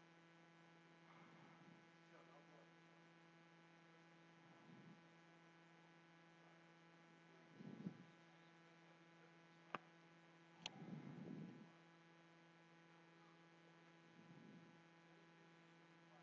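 Near silence: a faint, steady electrical hum, with a few soft handling rustles and two sharp clicks about a second apart a little past the middle.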